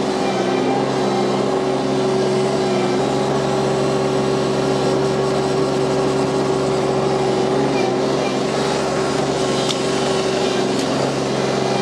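Ventrac 4520 compact tractor's three-cylinder Kubota engine running at a steady speed while the tractor drives over loose soil.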